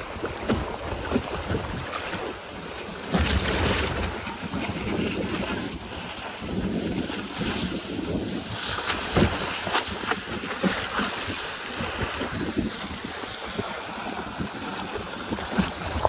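Wind buffeting the microphone over choppy sea, with waves splashing against the hull of a small boat. There are louder splashes about three seconds in and again around nine seconds.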